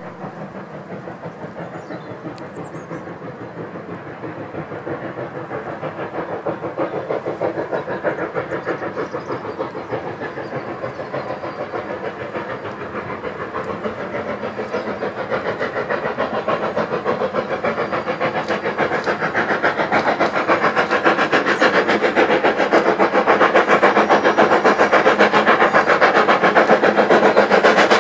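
Steam locomotive exhaust beats, a fast, even chuffing that grows steadily louder as the train approaches under steam.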